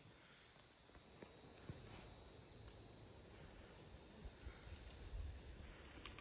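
Insects chirring in the background: a steady, faint high-pitched drone with a few faint clicks.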